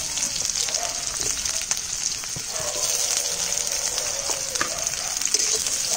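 Chopped onions frying in hot oil in a kadai: a steady sizzle with scattered crackles as they are stirred.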